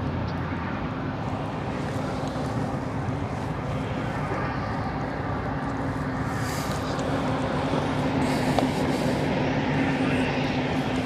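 Steady low drone of a nearby power plant's machinery, with constant humming tones under an even rushing noise, growing slightly louder over the last few seconds.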